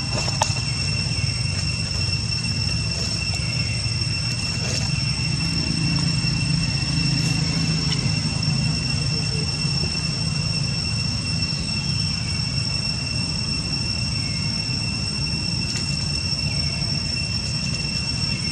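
Insects droning in one steady high-pitched tone over a low, even rumble, with a few faint short chirps and clicks.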